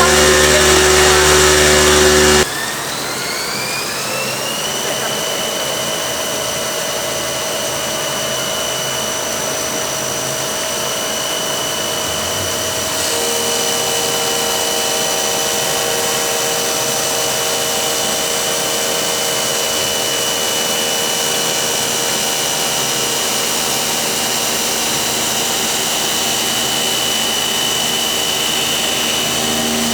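CNC stone working center running. A loud noisy run cuts off sharply about two seconds in, then a motor whine rises in pitch for a couple of seconds and holds steady, and the machine gets a little louder about halfway through.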